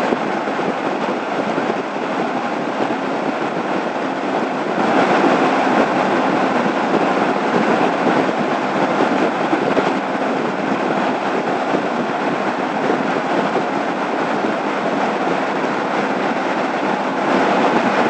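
Honda ST1100 touring motorcycle cruising at freeway speed: a steady rush of wind and road noise on the bike-mounted microphone, swelling louder for a few seconds about five seconds in.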